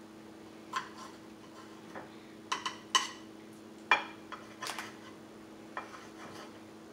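Kitchen knife chopping red bell pepper on a metal plate: a scattered, irregular series of sharp taps and clinks of the blade against the metal, over a faint steady hum.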